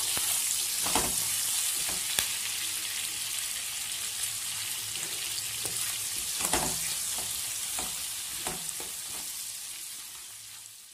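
Sliced onions sizzling in hot mustard oil in a wok, stirred with a wooden spatula that scrapes the pan several times at irregular intervals. The sizzle fades out near the end.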